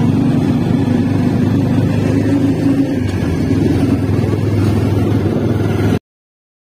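Motorcycle rickshaw's engine running steadily as it drives along, heard from the passenger seat; the sound cuts off suddenly about six seconds in.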